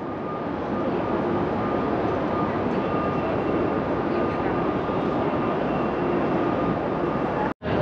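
Steady jet aircraft engine noise with faint whining tones, building over the first second, then holding level until it cuts off abruptly near the end.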